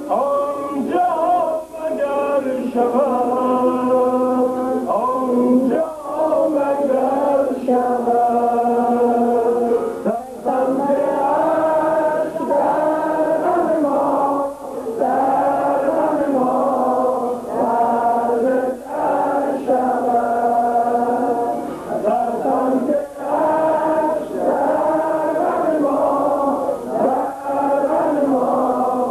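A group of men chanting a devotional song together in long, sustained phrases, pausing briefly for breath about every four seconds.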